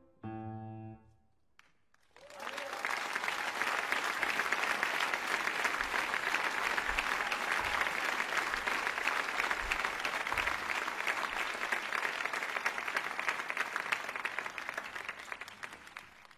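The last notes of outro music ring out, then after a short pause a crowd applauds from about two seconds in, a steady dense clapping that fades away near the end.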